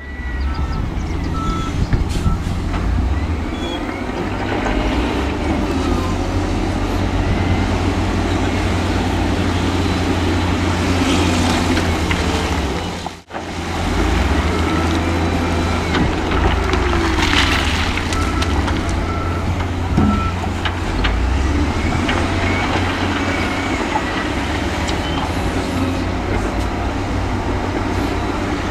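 Heavy diesel construction machinery (bulldozer, wheel loader and dump trucks) running steadily with a deep engine drone, while a reversing alarm beeps in short repeated series near the start and again after the middle. The sound drops out for a moment a little before the middle.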